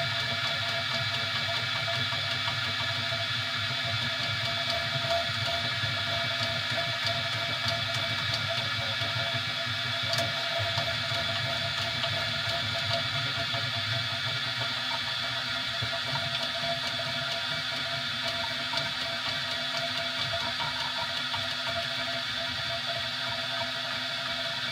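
3D printer running: a steady mechanical hum made of several steady tones from its fans and motors, holding level without a break.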